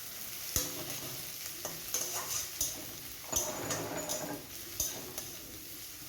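Chopped onion sizzling in hot oil in a kadai, with a spatula stirring and knocking against the pan about once a second.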